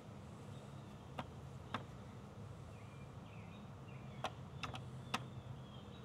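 Faint steady low hum with about half a dozen short, sharp clicks, and a few faint high chirps around the middle.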